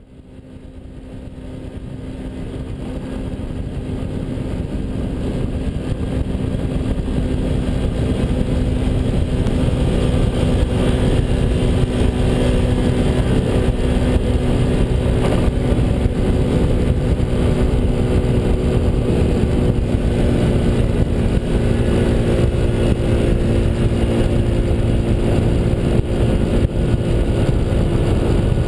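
Honda Elite 80 scooter's small single-cylinder engine running under way, a steady engine hum over a constant rush of noise, picked up by a camera mounted on the front of the scooter. It grows louder over the first few seconds, then holds steady.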